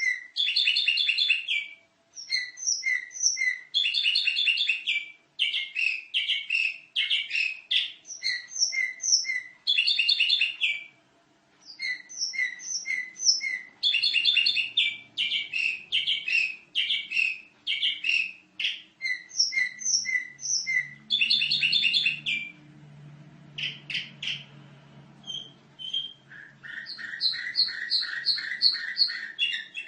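Domestic canary singing vigorously, phrase after phrase of rapid repeated high trills with short pauses between them.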